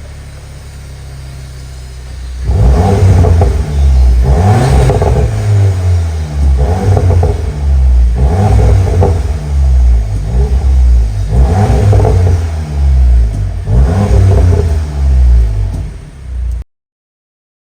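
Volkswagen Golf R Mk8's turbocharged 2.0-litre four-cylinder idling through an X-Force Varex valved cat-back exhaust, then revved hard about six times, each rev rising and falling back. It cuts off suddenly near the end.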